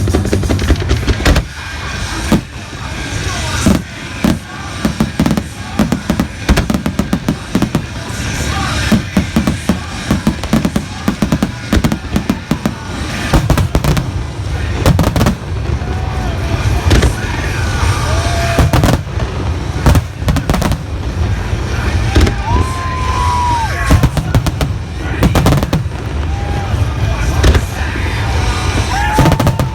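Fireworks display: aerial shells bursting in rapid, repeated bangs and crackles over music.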